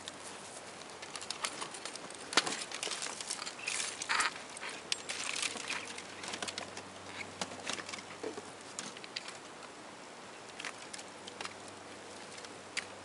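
Shot-up Compaq laptop being handled by hand: irregular plastic clicks, creaks and rattles as its screen and broken case are pulled about, with a sharper knock about two seconds in.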